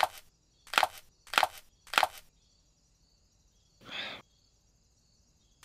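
Four short, sharp hits about half a second apart, then a brief soft rushing sound, and one more sharp hit at the end, over a faint steady high-pitched tone.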